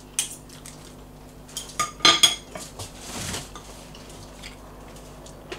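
Metal forks and spoons clinking and scraping on ceramic dinner plates during a meal, in scattered sharp clicks that cluster about two seconds in, with a short soft rushing sound about three seconds in.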